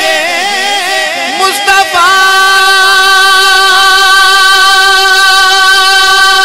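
A naat reciter singing a melismatic Urdu phrase. For about two seconds the voice wavers through quick ornaments, then it settles into one long held note.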